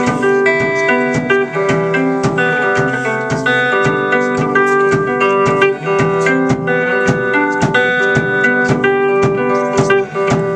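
Live band playing the instrumental close of a song: strummed electric guitar with keyboard and cello, held chords over a steady beat.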